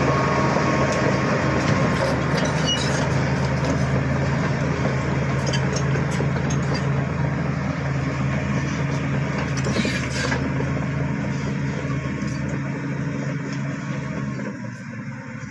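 Bulldozer's diesel engine running steadily at work, with scattered short clanks. It grows quieter near the end.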